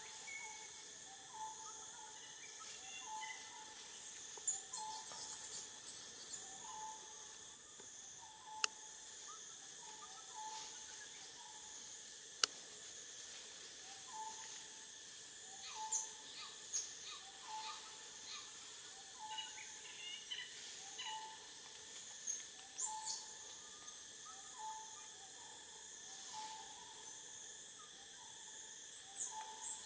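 Forest ambience: a bird repeats a short call about once a second over a steady high drone of insects, with a few brighter high chirps and two sharp clicks.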